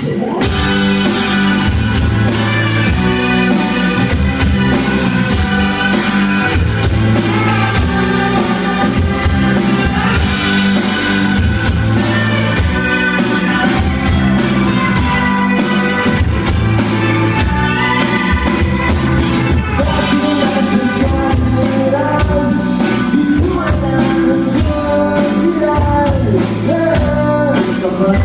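Live rock band playing: electric and acoustic guitars, electric bass and a drum kit keeping a steady beat, with a man singing lead vocals.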